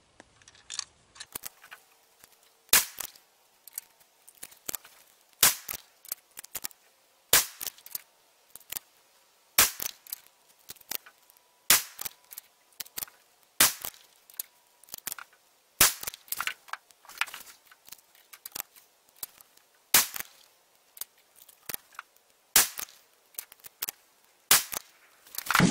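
Savage 12 LRP bolt-action rifle in .260 Remington firing a ten-round load-development ladder, about ten sharp shots roughly two seconds apart, with fainter clicks between them.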